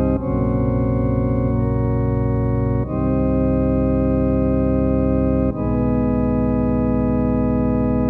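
Background music of sustained organ chords, each held for about three seconds before the next one comes in.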